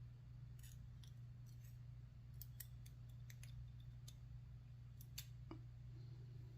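Faint, irregular small metallic clicks from lock pins, springs and small tools being handled while pin stacks are loaded back into a Lockwood 334B45 lock cylinder, over a steady low hum.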